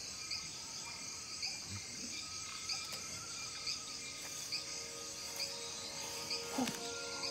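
Designed night-jungle ambience: an insect chirping in short high pulses about once a second, with a softer insect trill beneath. Soft music tones come in near the end.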